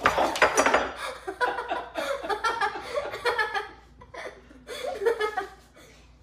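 A person laughing loudly in fits, dying down about four seconds in, then a second short burst of laughter about five seconds in.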